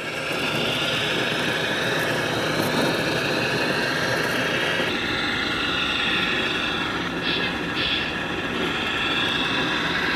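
Radio-controlled construction machine models running: a steady mechanical whine in several pitches over a low rumble, the pitches shifting about halfway through.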